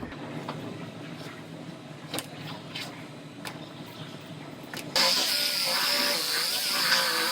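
A few light clicks and knocks, then about five seconds in a power tool starts abruptly and runs with a loud hiss and a wavering whine, as the damaged rear body panel is being cut off.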